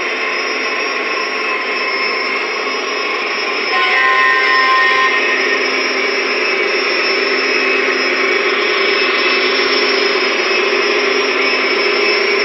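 O-scale model AC6000 diesel locomotives running past with their train on three-rail track: a steady rolling and motor noise that gets louder about four seconds in as the lead locomotives come close.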